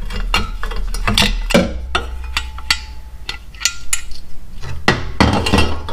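Metal hand tools and loose bolt parts clinking and knocking irregularly, some strikes ringing briefly, as a part on a motorcycle's front end is unbolted with an Allen bit on a ratchet.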